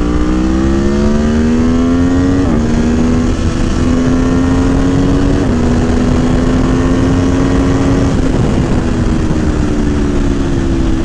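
Aprilia Tuono V4 1100 Factory's V4 engine, running a Gabro Stage 3 airbox and ECU flash, pulling hard under acceleration. Its pitch climbs steadily, with brief drops at upshifts about two and a half and five and a half seconds in, then levels off and eases slightly after about eight seconds.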